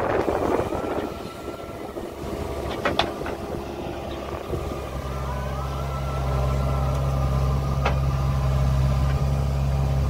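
JCB backhoe loader's diesel engine working as the rear bucket digs and lifts soil. It settles into a steady, heavier drone from about five seconds in, with a thin whine above it. Sharp metal clanks come near three seconds and again near eight seconds.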